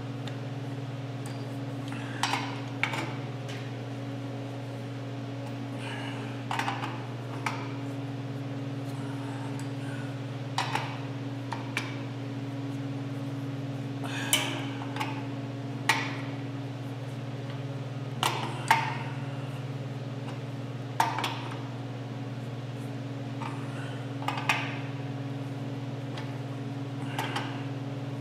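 Irregular metal clinks and taps, about a dozen, as an air compressor's new pressure switch is threaded onto a short pipe nipple on the tank and turned with a hand tool. A steady low hum runs underneath.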